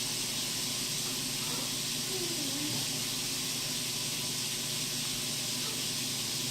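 Steady hiss, with a faint, short falling sound about two seconds in.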